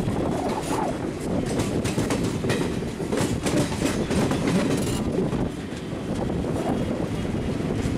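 Indian Railways passenger train running, heard from beside a coach: a steady rumble of wheels on rail with rapid clickety-clack clicks over rail joints, busiest in the middle seconds and easing slightly near the end.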